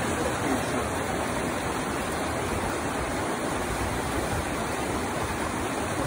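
Waterfall and creek water rushing: a steady, even roar of falling and tumbling water.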